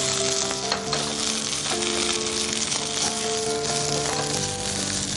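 Boiled taro root pieces and taro leaves sizzling in hot oil in a nonstick kadhai, stirred and turned with a spatula as they fry towards golden.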